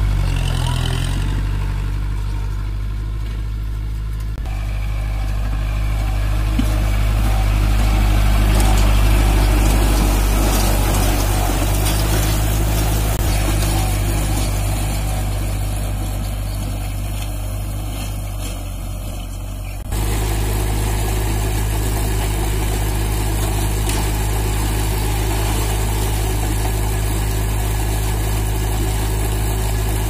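Kubota MU4501 tractor's four-cylinder diesel engine running steadily while pulling and driving a round baler. Its loudness swells and eases, then changes abruptly about twenty seconds in and holds steady.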